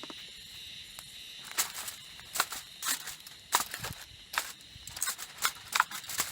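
Wood campfire crackling, with irregular sharp pops coming every fraction of a second after the first second and a half, over a faint steady high hiss.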